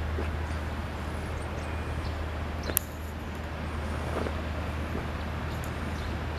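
Outdoor street ambience: a steady low rumble of distant traffic, with a single sharp click about three seconds in.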